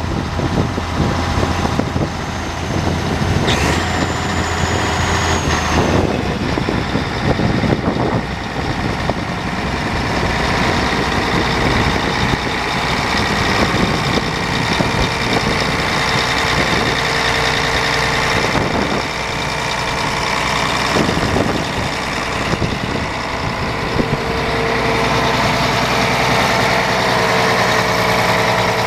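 Case IH 4894 tractor's diesel engine running steadily at idle, heard up close.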